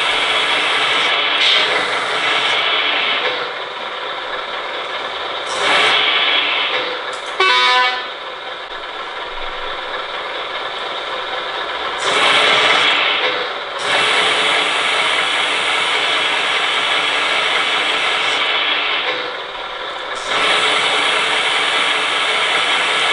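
Hydraulic pump of a 1/14 scale RC MAN 8x8 truck's loader crane, running with a steady whine while the crane boom is raised. It grows louder several times as the crane's valves are worked, and a brief pitched tone sounds about a third of the way in.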